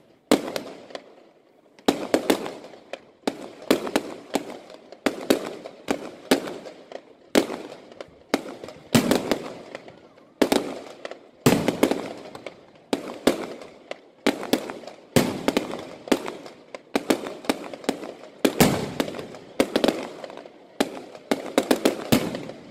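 Fireworks display: aerial shells bursting overhead in a steady run of sharp bangs, one or several in quick succession every second or so, each bang trailing off before the next.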